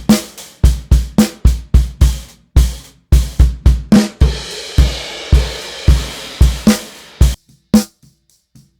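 Recorded drum kit playing a steady beat, its snare top mic run through the Sphere Eclipse C console's 823 EQ module switched in, with top end and a 100 Hz boost plus a gentle high-pass filter, which makes the snare sound crisper. About seven seconds in the beat stops, leaving a few faint single hits.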